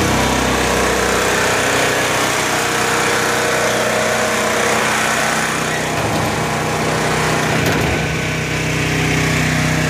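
Honda EV4000 4 kW RV generator's engine running steadily just after being started, exhausting through a newly fitted custom exhaust and muffler.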